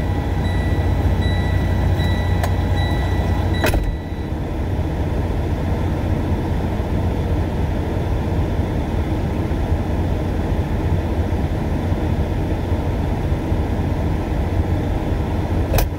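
Freightliner Coronado semi truck's diesel engine idling steadily, heard from inside the cab. For the first four seconds a high electronic beep repeats about twice a second, ending with a click.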